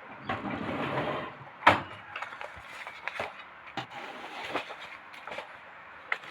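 Small objects being handled on a work surface: a rustle in the first second, a sharp click about a second and a half in, then scattered lighter clicks and taps.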